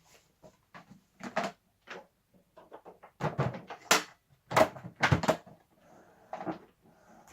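Irregular clatter and knocks of hard vacuum-cleaner parts being handled, a dozen or so sharp taps. The loudest come in a cluster about three to five and a half seconds in. The vacuum motor is not running.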